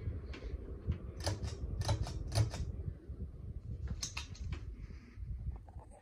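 Sharp clicks from a Hunter Waldon ceiling fan's pull-chain switch and its chain, several in quick succession between one and two and a half seconds in and twice more around four seconds in, over a low rumble of moving air on the microphone.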